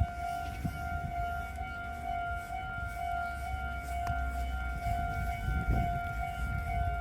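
Japanese level-crossing warning bell ringing its repeated kan-kan tone at an even pace, over a low rumble.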